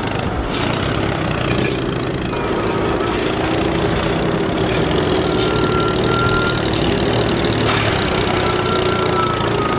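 A mini tractor's engine running steadily at an idle-like pace, with a faint high whine that comes and goes a few times.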